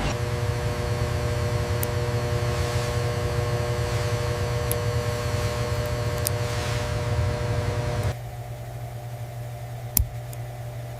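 Steady machine hum with a few held tones over a hiss, dropping abruptly to a quieter hum about eight seconds in; a single sharp click near the end.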